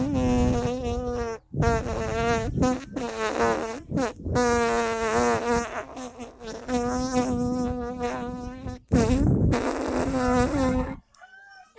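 A person mimicking a buzzing bee with the voice: a steady, nasal buzz held at one pitch, in about six long stretches broken by short breaths, fading out near the end.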